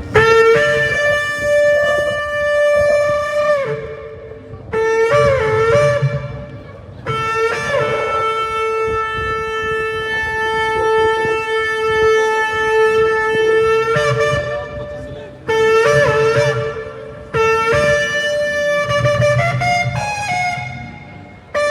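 A shofar blown in a series of blasts, about six in all, the longest held for about seven seconds from about seven seconds in. The notes jump up and down between two pitches at the starts and ends of the blasts.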